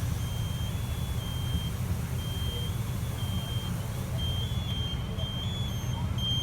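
Steady low rumble, with a string of high electronic beeps that come and go and step between two close pitches, starting about a quarter second in.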